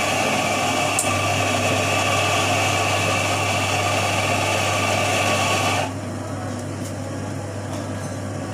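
Café coffee equipment running: a steady whirring hiss that cuts off abruptly about six seconds in. Under it a low, even hum starts with a click about a second in and carries on.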